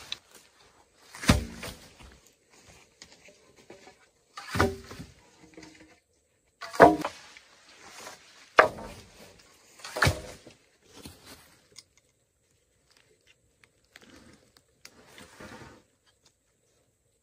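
A digging tool biting into packed earth: five heavy, dull thuds a couple of seconds apart, then a few lighter knocks.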